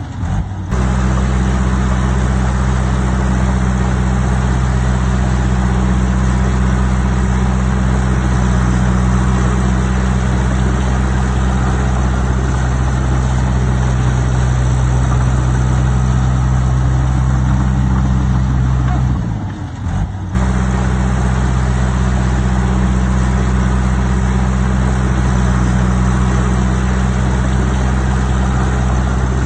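Heavy earthmoving machine's diesel engine running at a steady pitch, with a short dip in level about two-thirds of the way through.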